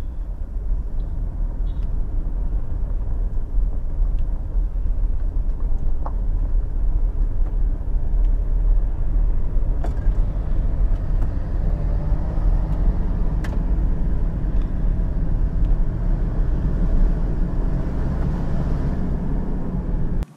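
Steady low rumble of a car driving along a sealed highway: engine and tyre road noise, with a few faint clicks.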